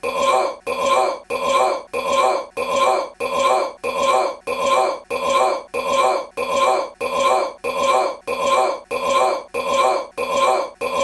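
A man's short belch played in an identical loop, nearly two belches a second with a brief gap between each.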